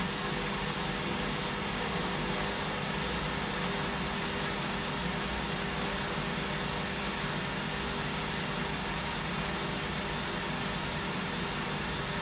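Washing machine running steadily, its motor giving a constant hum with a steady higher tone over a whirring noise.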